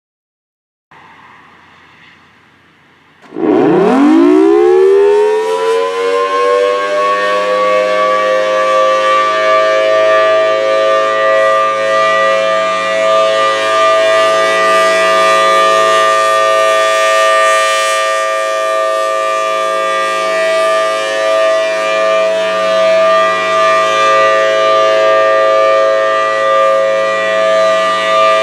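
Federal Signal Thunderbolt 1000T tornado siren sounding its test. About three seconds in it winds up, its pitch sweeping fast upward. It then holds a loud, steady wail of several tones together, its level swelling and fading slightly.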